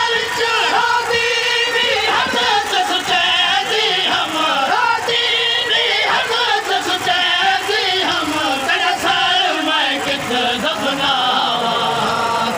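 Noha, a Shia mourning lament, chanted by male voices: a lead reciter's melody with several voices singing together.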